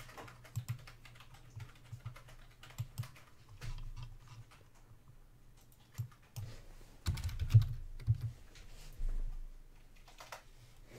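Scattered light clicks and taps of hands working at a desk, with a denser run of louder clicks about seven to eight seconds in.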